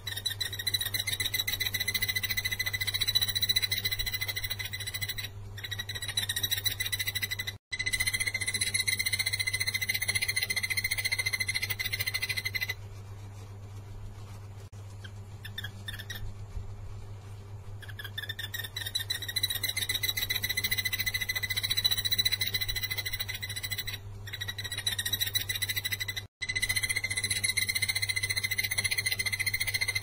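Takur tenggeret barbet singing: long, rapid trills of quickly repeated notes at one steady pitch. There are two long bouts with a pause of about five seconds in the middle, over a steady low hum.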